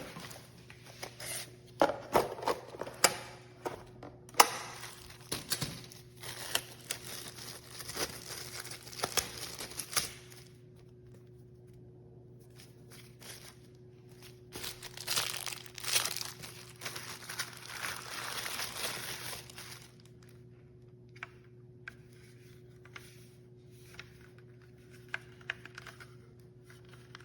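Packaging being handled: crinkling and tearing with sharp clicks and taps, in two spells that end about ten and twenty seconds in, after which only a few faint taps remain.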